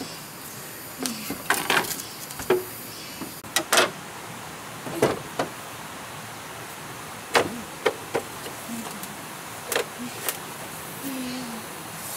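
Irregular wooden knocks and clatter of bamboo poles and slats as a person climbs onto a slatted bamboo platform and shifts about on it, with a few short creaks, over a steady background hiss.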